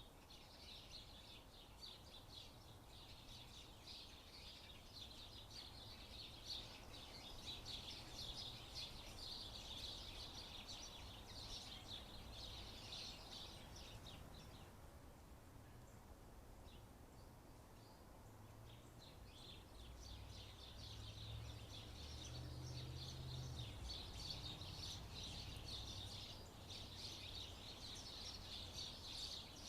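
Faint, continuous chatter of many small birds chirping, which thins out for a few seconds around the middle, over a low background rumble.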